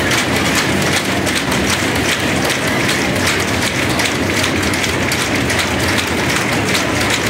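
A room full of people clapping continuously: a dense, steady patter of many hands that does not let up.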